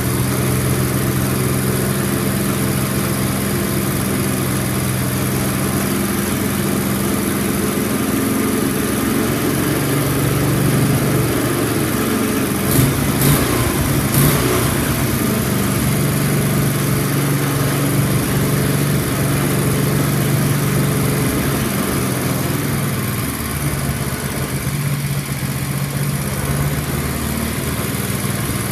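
Bolens 8 hp snowblower engine running steadily on its first run with a newly fitted carburetor, its speed shifting a few times, with a few short clicks about halfway through.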